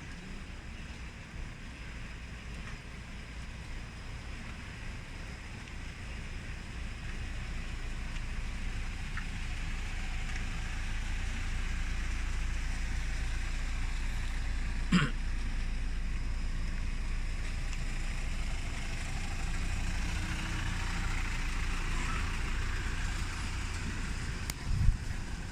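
Steady low rumble, like a motor vehicle running, slowly growing louder, with one sharp click about fifteen seconds in and a short thump near the end.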